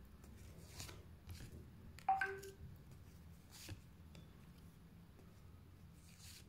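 Faint, soft swishes and taps of tarot cards being drawn from the deck and laid down on the table, a few separate strokes, the loudest about two seconds in.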